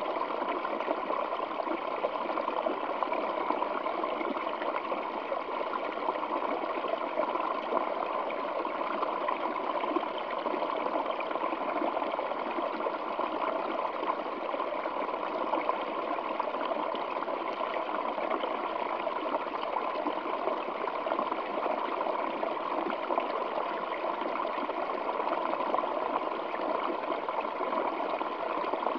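Small waterfall spilling and splashing over rocks, a steady rushing with no change in level.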